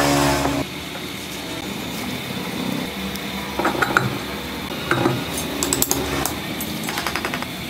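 Lead-acid battery plates and separators clicking and clattering against each other as they are handled and stacked by hand, in scattered clusters of sharp clicks over a steady background hum. A loud humming tone stops about half a second in.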